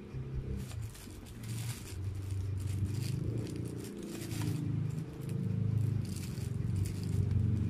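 Thin plastic food wrapper rustling and crinkling in short bursts as hands handle a footlong sandwich on it, over a louder low rumble.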